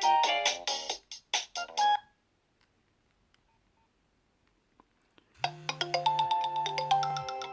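Nokia 6230 polyphonic ringtone playing from the phone's speaker, a quick run of notes that stops about two seconds in. After a few seconds of quiet another ringtone melody starts, with a low buzz under it that comes twice, most likely the phone's vibration alert.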